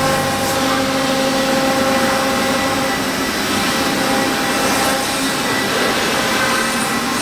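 Large CNC milling machine's spindle cutting a wood pattern: a steady whine over continuous cutting noise.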